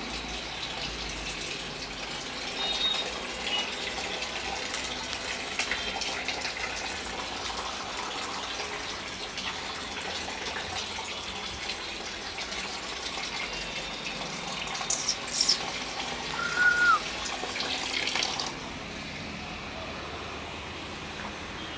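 A steady rush of running water, with a few sharp clattering knocks and a brief high squeak about fifteen to seventeen seconds in. The rushing cuts off abruptly a few seconds before the end.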